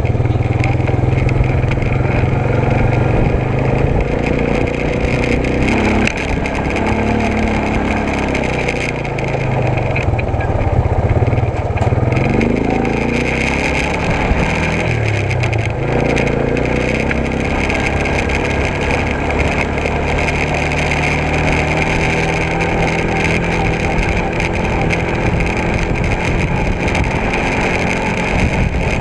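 Vehicle engine running steadily, its pitch rising and falling several times a few seconds in as it speeds up and slows, then holding steadier.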